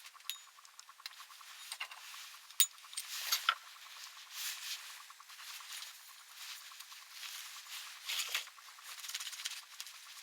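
Irregular light clicks, taps and scratchy scraping, as from hand work on small parts, with a few sharper clicks a few seconds in.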